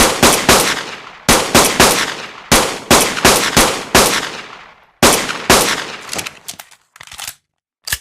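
Pistol gunshot sound effect: a rapid string of sharp shots, each with a decaying echo tail, coming in quick runs. A few softer, shorter cracks follow near the end.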